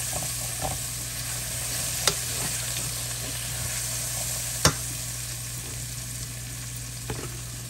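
Onions and green peppers sizzling as they sauté in a stainless steel pot, stirred with a utensil that clacks sharply against the pan a few times, the loudest clack just past halfway.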